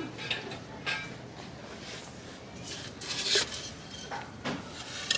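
Ceramic plant pots knocking and clinking against each other and the shelf as they are handled, several separate clinks with a quicker cluster a little past the middle, over low store background noise.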